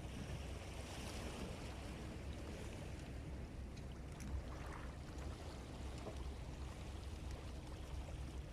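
Seawater washing and lapping against rocks, with a steady low wind rumble on the microphone and a few faint small clicks.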